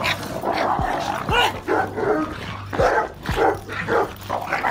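Dogs barking over and over, the barks overlapping at roughly two to three a second, with a few deep thuds among them.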